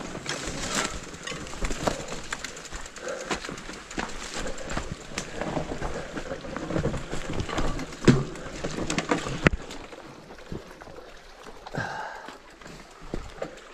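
Rigid fat bike on a rocky trail: gravel and rocks crunching and clattering under the tyres, with irregular clicks and knocks and one sharp knock about eight seconds in.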